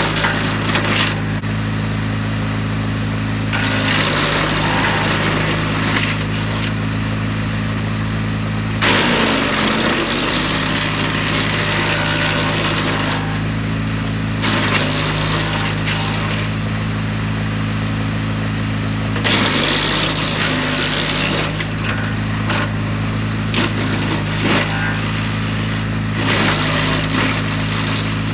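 DR wood chipper's engine running steadily, with repeated bursts of a few seconds each as branches are fed in and chipped by its freshly replaced blades. The engine pitch dips briefly under load about a third of the way in.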